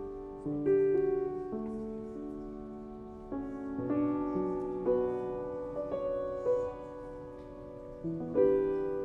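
Solo piano music: chords struck one after another about every second or so, each left to ring and fade.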